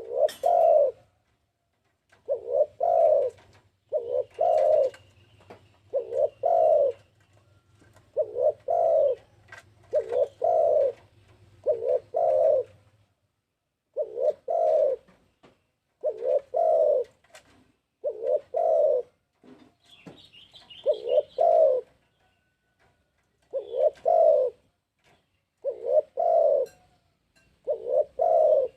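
Spotted dove (tekukur) cooing: a phrase of two low coos repeated about every two seconds.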